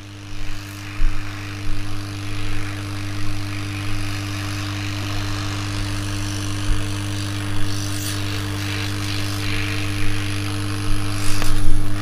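Hot-air gun of an SMD rework station blowing steadily, a constant fan hum under a rush of air, as it heats a smartphone to soften the adhesive holding its display.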